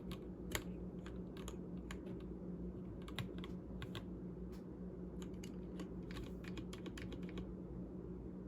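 Typing on an Akko Sakura Jelly 3087 tenkeyless mechanical keyboard with stock Gateron Pink 43g linear switches in a stacked acrylic case: an irregular patter of keystrokes. A steady low hum runs underneath.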